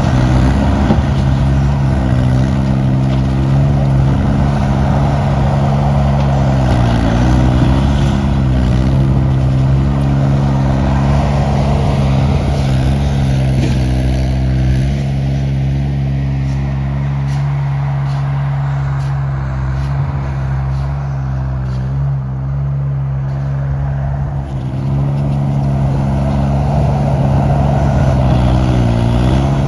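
Engine of a small Bobcat-type skid-steer loader running steadily while clearing snow from a street. Its pitch dips and recovers a few times.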